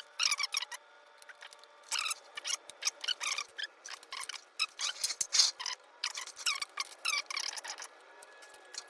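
Allen wrench working on a bicycle's old brake bolts: an irregular run of short, sharp metallic squeaks and clicks.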